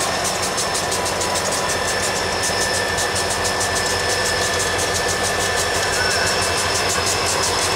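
Diesel freight locomotives running steadily, with a steady high-pitched whine over the engine noise.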